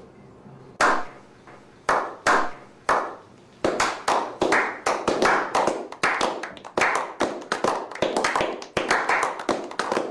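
Hand clapping that builds: a few slow single claps spaced out, then from about three and a half seconds in several people join and the claps come fast and overlapping.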